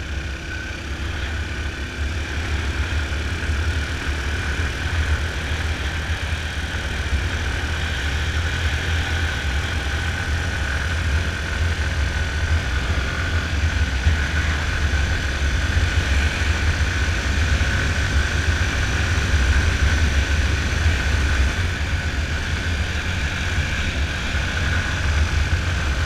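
Yamaha Fazer 250 single-cylinder engine running steadily at road speed, with heavy wind rumble on the microphone. The sound grows slowly louder as the bike speeds up.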